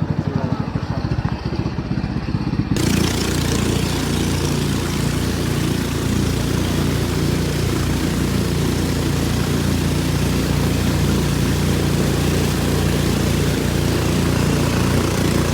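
Motorboat engine running steadily. From about three seconds in, a loud rushing hiss of wind and water joins it.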